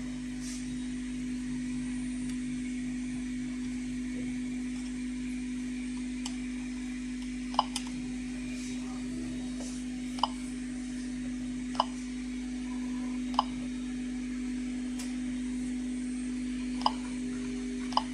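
Geiger counter dosimeter clicking at irregular intervals, about seven short sharp clicks, as it registers counts from natural background radiation. A steady hum runs underneath.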